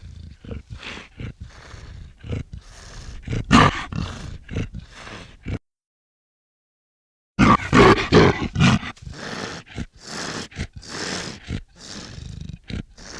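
Black leopard vocalising in two runs of short, rapid pulses, separated by about two seconds of silence; the second run starts loudest.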